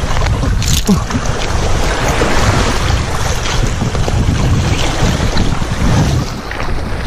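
Wind buffeting the microphone: a steady, rushing rumble with no pauses.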